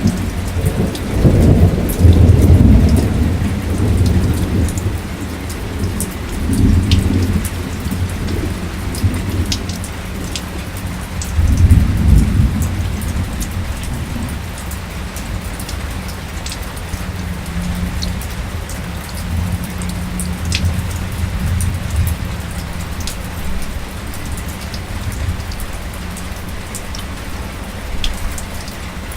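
Drizzle falling steadily, with scattered drop ticks, under rolling thunder. The thunder rumbles loudest about two seconds in and again near twelve seconds, then rolls on more softly.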